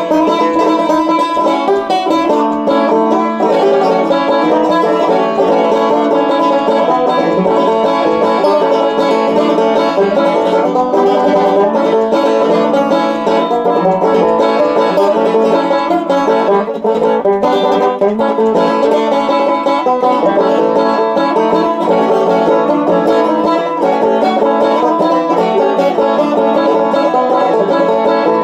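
Five-string banjo picked in a steady bluegrass roll, a continuous run of bright plucked notes.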